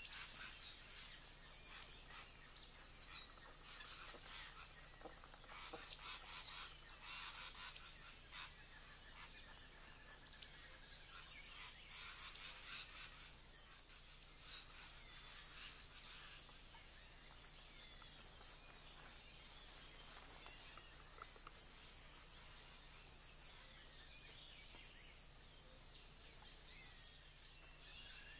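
Juvenile boat-billed heron giving begging calls, a run of rapid short calls through the first half that falls away later, over a steady high-pitched insect drone of the pre-dawn forest.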